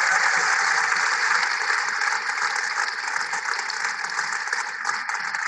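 Audience applauding steadily as a TEDx speaker comes on stage, played back from the talk's video.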